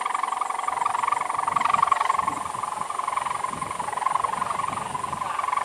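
Kite hummer (a 4-metre sendaren bow) on a flying gapangan kite, droning continuously in the wind: a steady, finely fluttering buzz-hum.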